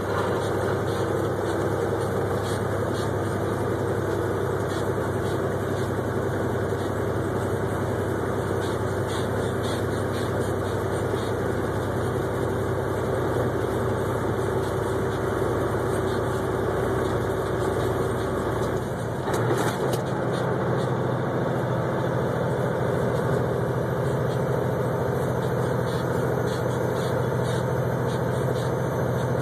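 Diesel engine of an 18-wheeler tractor running steadily at highway speed, heard from inside the cab with road noise. About two-thirds of the way through there is a brief knock and the engine note changes.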